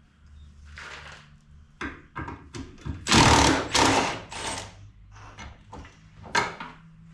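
A power tool, likely an impact wrench on bolts, run in several short bursts, the loudest about three to four seconds in.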